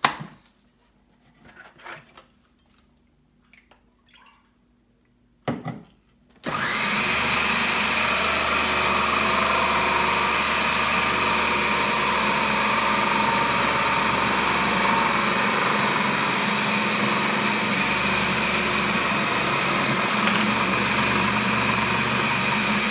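Food processor motor starting about six seconds in and running steadily, mixing shortcrust pastry crumbs with iced water into a dough. Before it, a few faint knocks of a spoon and the processor lid.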